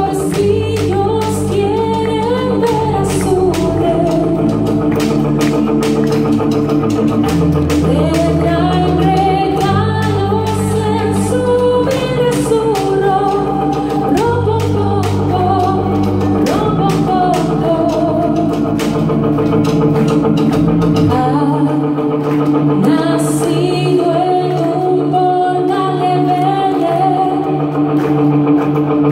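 A woman singing lead into a microphone over a live band of electric guitars, electric bass, keyboard and a drum struck with sticks. The low bass notes drop out about two-thirds of the way through.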